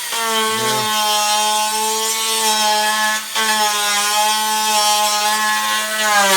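Handheld electric power tool running steadily at a high pitch while cleaning a part. Its sound drops out briefly about three seconds in, and its pitch sags a little near the end as it is loaded.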